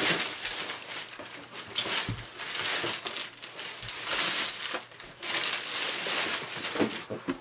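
Packaging crinkling and rustling irregularly as it is handled and rummaged through.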